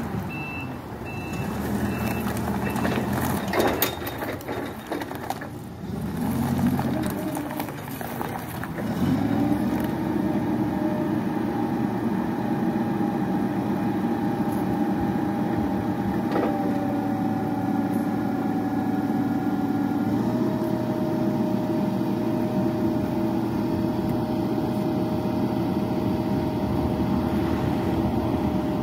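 Caterpillar GP35NM propane forklift: a reversing alarm beeps several times over the running engine. Then, about nine seconds in, the engine revs up and the hydraulics whine steadily as the mast lifts to full height, the pitch of the whine shifting twice.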